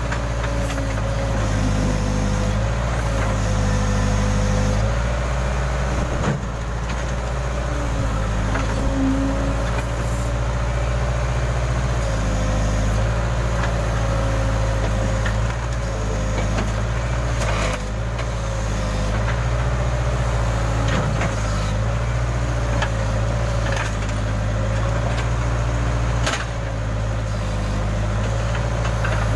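Case backhoe loader's diesel engine running steadily under working load, with a thin whine that wavers up and down in pitch as the backhoe works. A few sharp knocks, including one about six seconds in and one near the end.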